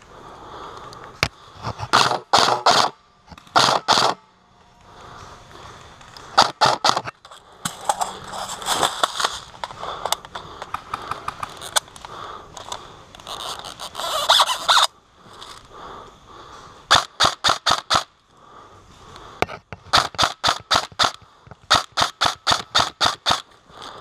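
Airsoft rifle, an M4 SOPMOD Block II replica, firing quick strings of shots at about five a second in several volleys, heaviest in the second half. Between the volleys there are stretches of rustling and scraping.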